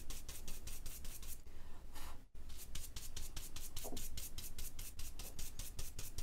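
Stencil blending brush rubbing white ink onto card through a Mylar stencil in quick, even strokes, about five a second. The strokes break off briefly a little over two seconds in.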